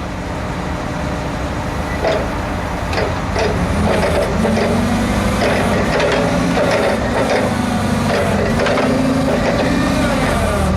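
The Mitsubishi 4G63 LP-gas engine of a Cat GC25K forklift runs steadily. From about two seconds in, its pitch rises and falls again and again, with short knocks in between, as the hydraulic lift, tilt and side shift are worked.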